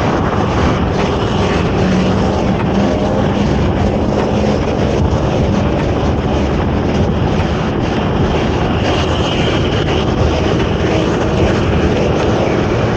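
Steady road and traffic noise from a bicycle riding through city traffic, with wind on the microphone. A low hum stands out for a couple of seconds about two seconds in.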